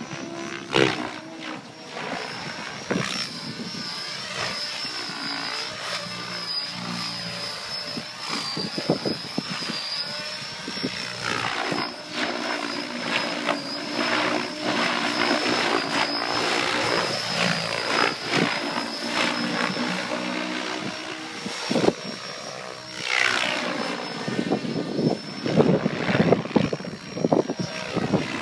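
Mikado Logo XXtreme 800 electric radio-controlled helicopter flying aerobatics, its rotor blades whooshing over a steady high whine from the drivetrain. The pitch sweeps down as it passes, most clearly about two-thirds of the way in, with gusty wind buffeting the microphone.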